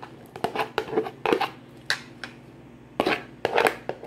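Chopped green bell peppers and onion tumbling out of a plastic container into a frying pan: a run of light clattering taps, with a denser flurry about three seconds in.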